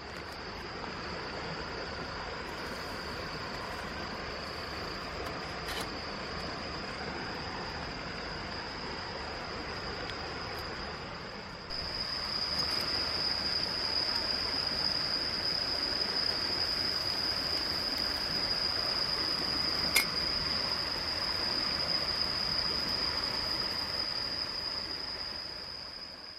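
Insects trilling steadily on one high note over the even rush of a mountain stream; the insect sound grows louder about halfway through.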